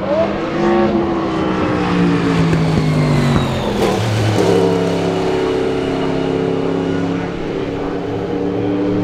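Group C prototype race car engines passing at speed. The pitch falls over the first three seconds, then a new engine note comes in about four seconds in and holds steady as the cars run on.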